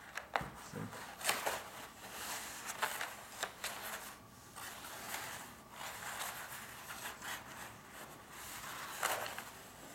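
Stiff mounting paper rustling and crinkling as a household iron slides over it and a hand smooths it flat, in irregular scratchy strokes.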